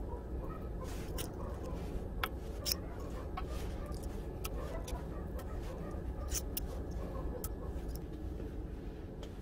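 Sharp little clicks and taps of metal pins and round disks set down on a steel leaf spring, spread irregularly over a steady low background rumble.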